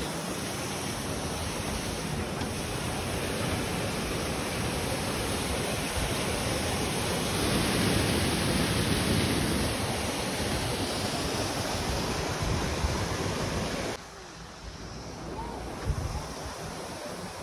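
Khanda Falls' water rushing steadily over rocks between snowbanks, loudest about halfway through. About fourteen seconds in it drops suddenly to a quieter hiss with a little wind on the microphone.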